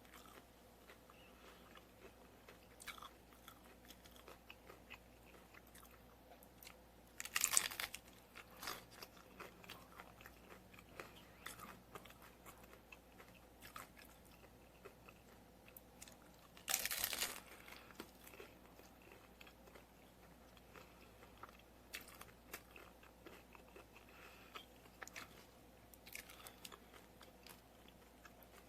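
Crunchy corn taco shells being bitten and chewed close to the microphone. There are two loud crunching bites, about seven and seventeen seconds in, with steady quieter chewing between and after them.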